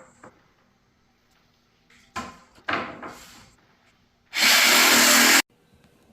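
Festool jigsaw motor running at a steady speed for about a second, then cutting off abruptly, after a couple of short scraping, handling noises.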